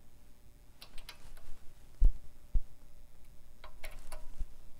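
Scattered light clicks and three dull knocks from a jack-operated shop press and the turbo housing on its bed, as the housing is shifted under the ram while a wastegate bushing is pressed in.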